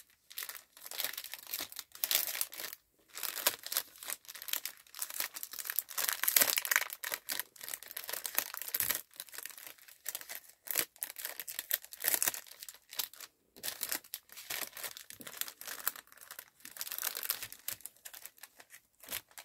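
A clear plastic cellophane-type bag crinkling and crackling in irregular bursts as it is folded and pressed flat around a paper craft piece.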